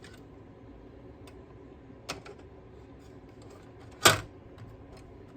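Small console parts and tools being handled during reassembly: a light click about two seconds in, then a louder, sharp clack about four seconds in, with faint ticks between.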